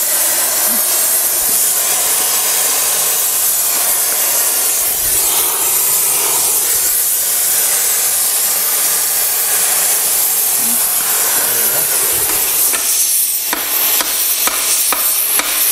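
Gas cutting torch flame hissing steadily as it heats a stuck brake drum on a tractor axle shaft to free it. Near the end, a few sharp metal knocks.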